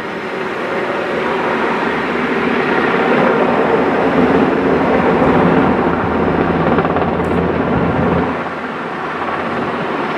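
Helicopter flying low overhead: rotor and engine noise swelling over the first few seconds, loudest in the middle, then falling away about eight seconds in.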